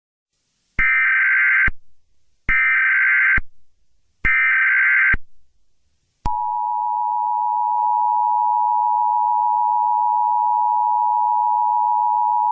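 Emergency Alert System signal: three roughly one-second bursts of SAME digital header data, each a harsh buzzy screech, then the steady two-tone EAS attention signal held for about six seconds.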